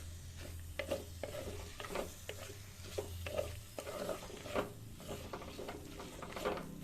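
Utensil stirring and scraping a thick brinjal moju mixture in a kadai, in irregular strokes and taps, with light sizzling.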